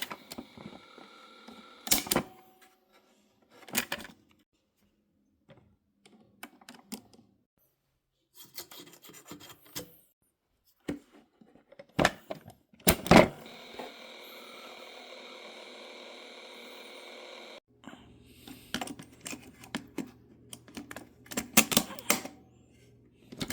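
Clicks, knocks and scraping from handling and working on a 1970s cassette recorder, with a few sharp clunks. About 13 seconds in, a loud clunk is followed by a steady mechanical running sound that stops with another clunk some four seconds later; more clicks then come over a low hum.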